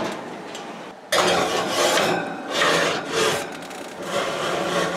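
Oven door opened about a second in, then a baking dish scraping and rubbing along the oven's wire rack as it is slid in.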